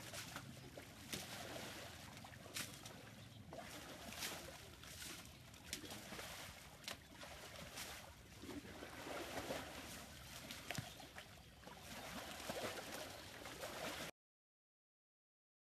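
Faint wet splashing and squelching of mud as elephant calves wallow and roll in a mud pool, with scattered short slaps and clicks. The sound cuts off suddenly shortly before the end.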